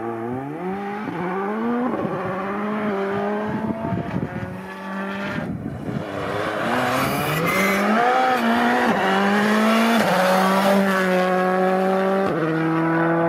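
Skoda Fabia Rally2 Evo rally car's turbocharged four-cylinder engine revving hard under acceleration, its pitch climbing and dropping back at each upshift, getting louder toward the end.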